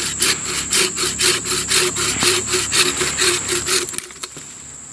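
Hand saw cutting through a newly dead, moist tree limb with quick back-and-forth strokes, about four a second, stopping about four seconds in as the piece comes free.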